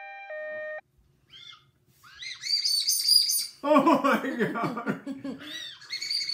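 A two-note electronic alarm tone cuts off just under a second in. It is followed by shrill, wavering whistles from Japanese strawberry Ramune whistle candy, a ring-shaped hard candy blown between the teeth, mixed with two people laughing.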